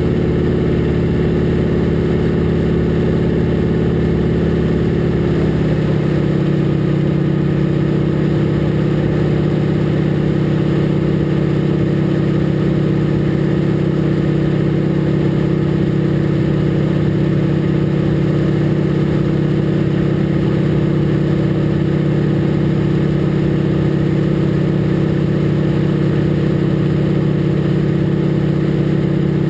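Harvard II's Pratt & Whitney R-1340 Wasp nine-cylinder radial engine and propeller running steadily at climb power, heard from inside the cockpit. About five seconds in, the engine note shifts to a slightly lower pitch and then holds steady.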